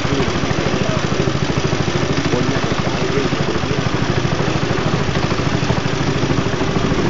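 A small boat's engine running steadily at a constant speed, with a rapid even pulse.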